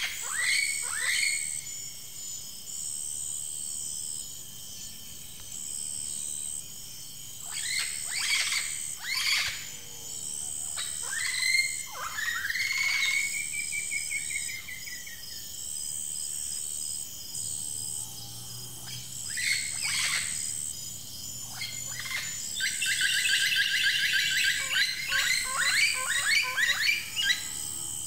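Forest ambience: several birds calling with short downward-sweeping whistles and, near the end, a fast trill, over a high insect drone that switches on and off about once a second.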